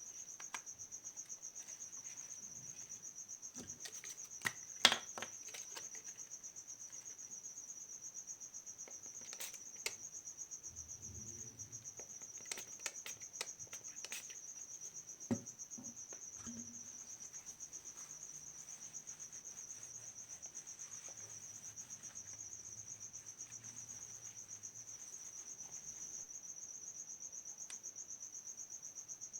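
Steady, high-pitched insect trill, rapidly pulsing and unbroken, with scattered light clicks and taps; the sharpest click comes about five seconds in.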